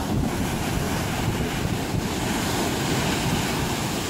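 Surf washing up on a sandy beach in a steady rush, with wind buffeting the microphone as a low, uneven rumble.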